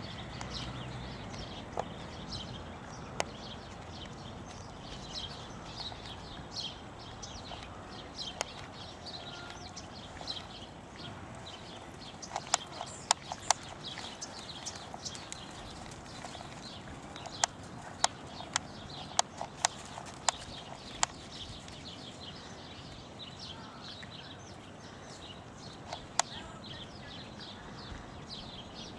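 Horse's hoofbeats on arena sand as it is ridden, with two runs of sharp clicks in the middle; birds chirping throughout.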